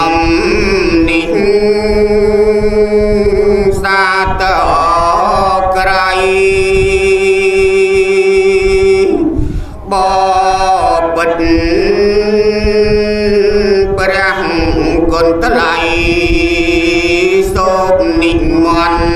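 A man's voice chanting a Buddhist Dharma verse in slow, drawn-out melodic phrases, holding long notes with vibrato. There is a brief break for breath about halfway through.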